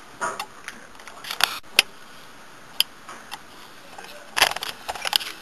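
Scattered sharp plastic clicks and small knocks from hands handling a network switch and its Ethernet cables' RJ45 plugs, with a quick cluster of knocks near the end.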